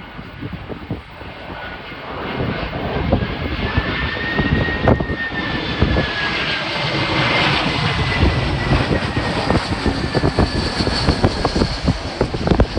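Airbus A321-231 jet airliner with IAE V2500 engines coming in to land, its engine rush building about two seconds in and staying loud as it passes. A high engine whine rises slightly and then drops in pitch as the jet goes by. Strong wind buffets the microphone throughout.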